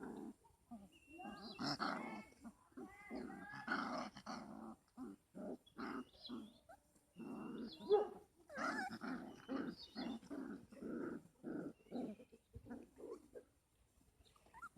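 Puppies growling and yapping, a string of short pitched calls one after another, with the loudest yelp about eight seconds in.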